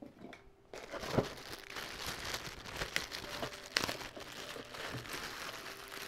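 Plastic packaging crinkling and rustling as it is handled, with a few sharp clicks and knocks. It starts a little under a second in.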